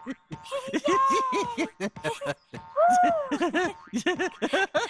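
Cartoon characters laughing and giggling in quick repeated 'ha' syllables. A high drawn-out sliding tone sounds about a second in, and a rising-then-falling one near three seconds.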